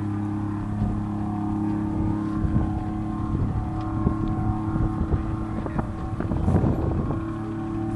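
V12 engine of an International race truck running at a steady pitch on a salt-flat speed run, a steady drone, with wind buffeting the microphone about six seconds in.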